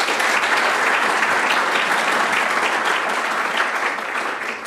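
Audience applauding: many hands clapping together in a dense, steady patter that begins to fade near the end.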